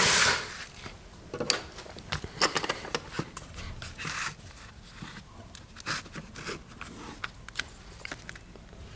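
Laminate plank being handled on a laminate floor: a short scrape as it is slid into place at the start, then scattered light taps, knocks and scrapes as it is lined up along the edge and marked for cutting.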